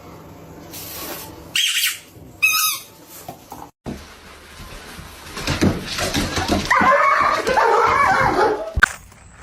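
A dog whining: two short, high-pitched cries a couple of seconds in, then, after a short break, a longer stretch of wavering whines.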